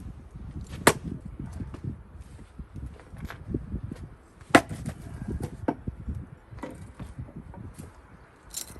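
Gränsfors Bruk axe splitting cherry wood rounds: two sharp, loud strikes about four seconds apart, with lighter knocks and clatter of wood between them.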